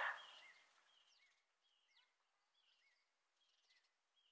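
Faint bird calls: short chirps repeating every half second or so over near silence. A short loud noise right at the start fades out within about a second.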